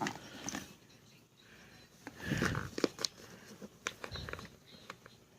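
Scattered light taps, clicks and rustling as boxes of ammunition are handled and counted, with a short burst of rustling about two seconds in.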